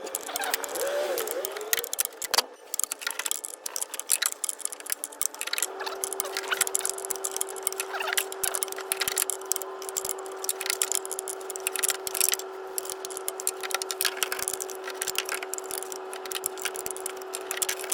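Ratchet and small metal tool clicks in irregular runs, tightening the new radiator's connections. A steady hum comes in about six seconds in and holds.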